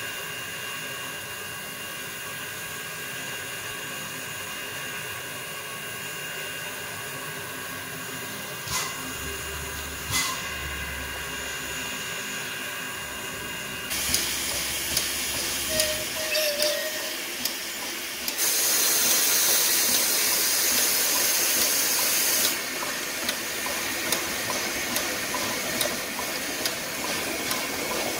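Steam locomotive venting steam with a steady hiss, over a few faint steady tones. About halfway through the hiss turns louder and rougher, with scattered clicks, and it is loudest for about four seconds in the last third.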